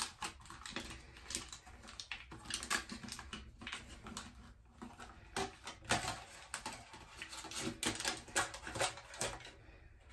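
Aluminum foil crinkling as it is pressed and folded by hand into a deeper bowl shape, in irregular crackles.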